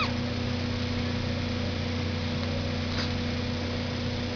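Steady machine hum made of several fixed low tones, with a faint short click about three seconds in.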